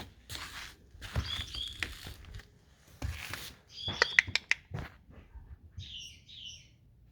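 Footsteps crunching on snow, then a quick run of short, high chirps about four seconds in and a fainter pair a little later.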